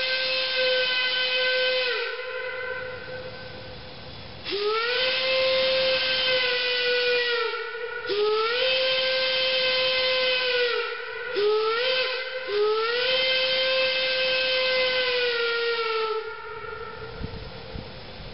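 Steam locomotive whistle blowing one steady tone: a blast that ends about two seconds in, then the long, long, short, long pattern of a grade-crossing signal. Each blast slides up in pitch as it opens and down as it shuts off.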